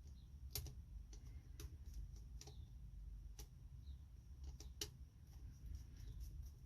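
Light, sharp clicks and ticks at uneven intervals, about a dozen, over a faint low hum: small plastic and metal parts and tools being handled while working inside a laptop.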